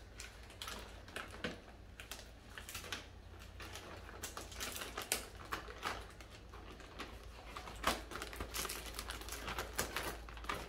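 Shipping package being opened and its contents handled: irregular crinkling, rustling and small clicks of packaging.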